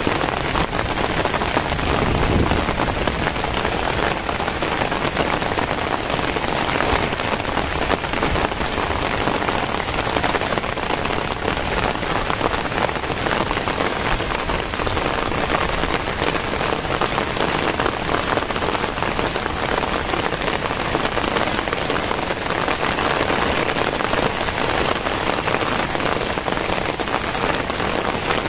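Very heavy rain pouring down steadily, a dense, even patter of drops on surfaces. A brief low rumble sounds about two seconds in.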